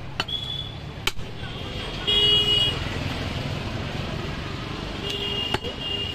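Vehicle horns tooting in passing traffic: three short, steady toots, the loudest about two seconds in, over a steady traffic rumble. A meat cleaver strikes the wooden chopping block about a second in and again near the end.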